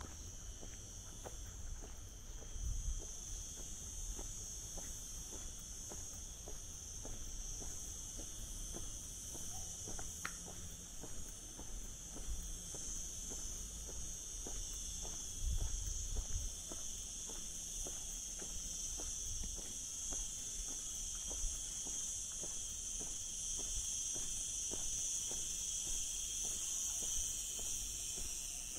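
A steady, high-pitched insect chorus, growing a little louder toward the end, with soft, regular footsteps underneath.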